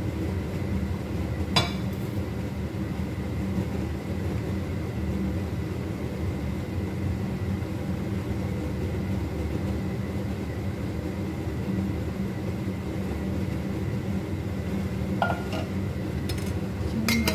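Steady low rumble with a faint hum from a running kitchen range hood fan over lit gas burners. Cookware clinks sharply once about a second and a half in and twice near the end.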